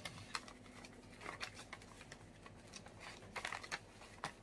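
Paper envelopes rustling as they are leafed through in a plastic storage box, with scattered light clicks and taps.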